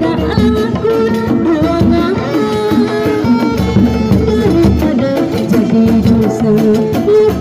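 Sundanese kuda renggong procession music playing loud through a sound system: a sliding, ornamented melody over steady hand-drum strokes.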